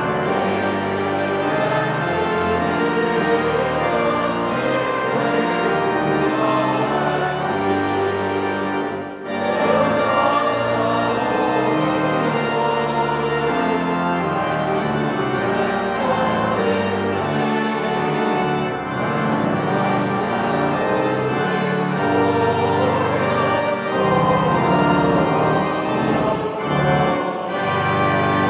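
Church choir singing with pipe organ accompaniment, with a brief break between phrases about nine seconds in.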